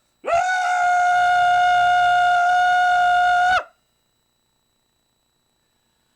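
A person's voice scooping up into a high, harsh, horn-like note and holding it steady for about three seconds before breaking off with a small upward flick.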